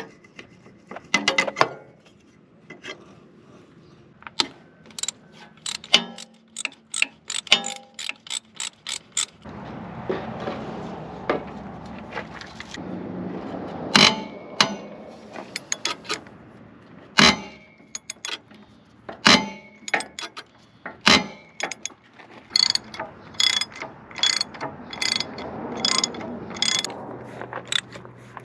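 Socket ratchet wrench clicking in quick runs as nuts are turned, with occasional louder metal clanks of tools against the steel parts.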